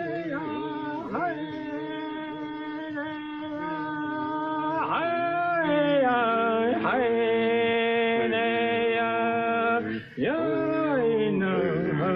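A man chanting a wordless mourning song over the dead, in long held notes that slide from one pitch to the next, with a brief break about ten seconds in.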